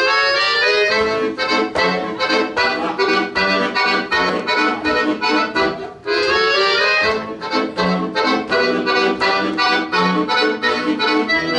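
Piano accordion playing a solo waltz introduction: a melody over regular chord strokes, in two phrases with a brief break about halfway.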